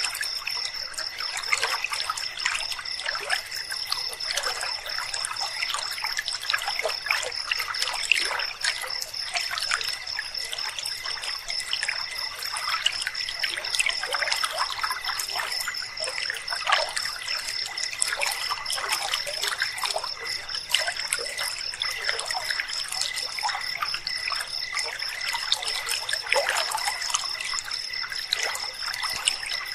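River water trickling and babbling over stones in a steady, unbroken flow. A constant high-pitched trill runs over it, with a fainter lower steady tone beneath.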